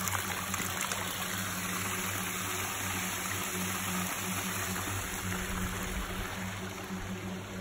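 Hot spring water running steadily down a narrow rock channel, splashing in a small cascade.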